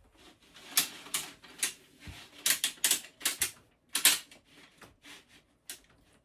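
Plastic character flaps of a Guess Who-style game board being flipped down one after another: a quick, irregular run of about fifteen sharp clacks.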